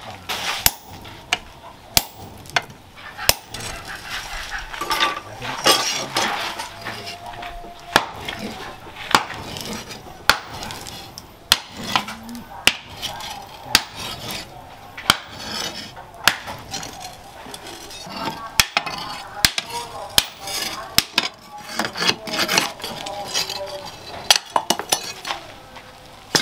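A sledgehammer striking red-hot leaf-spring steel on a steel post anvil while it is forged into a long knife blade. The blows are sharp metallic clangs at a steady pace of about one a second.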